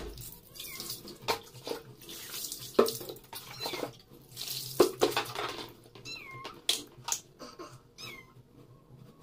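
Persian kitten meowing a few short times while being bathed, with water splashing as it is poured over the kitten and its wet fur is scrubbed.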